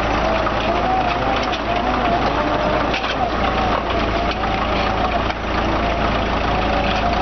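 Heavy diesel engine running steadily, with a thin whine that wavers up and down in pitch over it.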